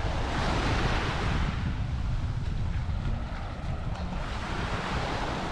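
Small waves breaking and washing up the sand, two swells of hiss about four seconds apart, with wind buffeting the microphone throughout.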